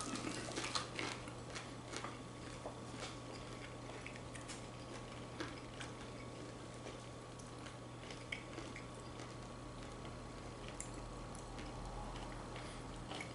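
People chewing bites of veggie burger sliders, with scattered small clicks and taps, more of them in the first few seconds, over a steady low hum.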